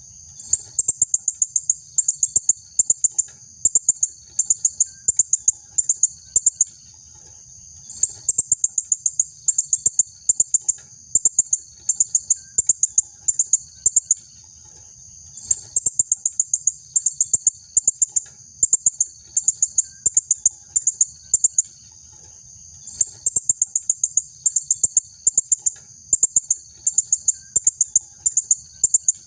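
Female blue-crowned hanging parrot calling: repeated runs of rapid, sharp, very high-pitched chirps, each run lasting a second or two, with short pauses between runs. A steady high hiss, like crickets or cicadas, runs underneath.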